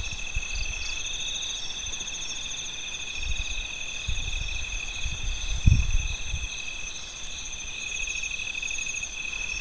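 Night insect chorus: crickets trilling steadily at several high pitches at once. Low rumbles come and go underneath, the strongest about five and a half seconds in.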